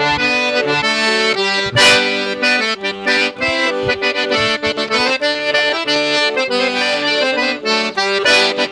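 Sanfona (piano accordion) playing a forró tune, a moving melody over held chords.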